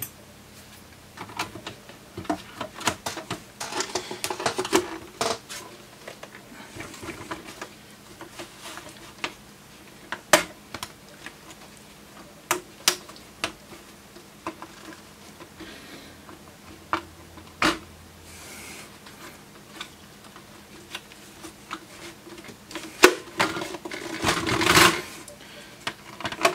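Irregular clicks and knocks of the plastic case and front panel of an Agilent E3646A bench power supply as it is handled and reassembled by hand. A quick run of clicks comes a few seconds in, and a longer scraping rustle comes near the end.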